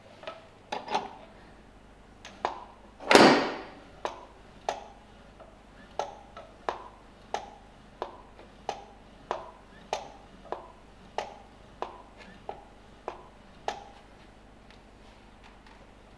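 Aluminium belt-tensioner arm and its cylinder being moved back and forth by hand on the pivot. Each stroke gives a short metallic click, about every two-thirds of a second, with one louder rushing scrape about three seconds in.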